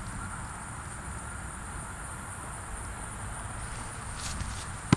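Steady outdoor background hiss with a thin high steady tone, then near the end a single sharp smack as the thrown football arrives at the catcher.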